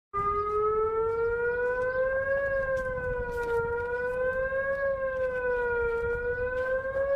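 Civil defense-style siren sounding, its pitch rising and falling gently about every two and a half seconds over a steady background hiss. It starts abruptly and cuts off sharply at the end.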